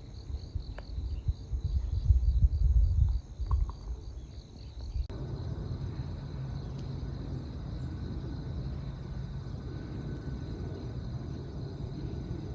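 Outdoor background of insects chirping in a high, evenly pulsing trill, with wind buffeting the microphone in gusts over the first few seconds. About five seconds in the background cuts abruptly to a steadier rushing hiss while the insect trill carries on.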